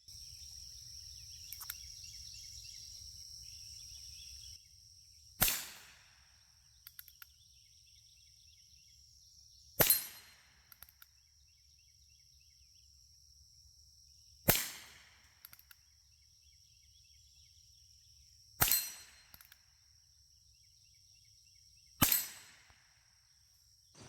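Five sharp .22 rimfire shots from a Ruger Single-Six single-action revolver, evenly spaced about four seconds apart, with a few light clicks between them.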